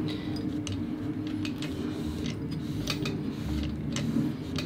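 Small irregular clicks and rubbing as a cloth wipes the metal belt pulley of a Gammill longarm quilting machine, over a steady low hum.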